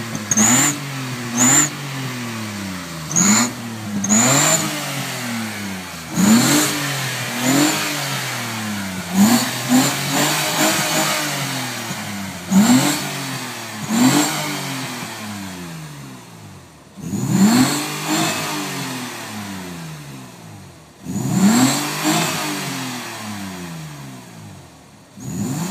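1995 Nissan Maxima's 3.0 V6 being blipped a dozen or so times through a MagnaFlow exhaust, the revs rising sharply and falling back. At the top of each rev a fake turbo whistle gives a short high whistle. The blips come about once a second at first, then further apart with longer falls between them.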